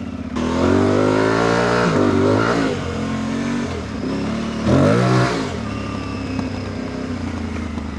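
Aprilia Tuareg 660's parallel-twin engine revving up as the motorcycle pulls away, easing off about two and a half seconds in. A second short burst of throttle comes about five seconds in before the engine settles to a steadier, lower run.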